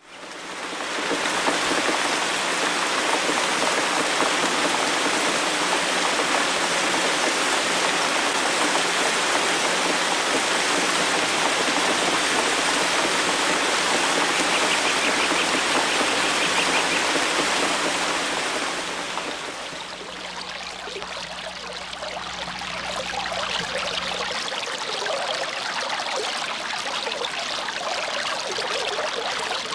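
Water fountain splashing and running steadily in a dense rush. About two-thirds of the way through it eases into a lighter, more trickling splash. A faint low steady hum underneath stops soon after.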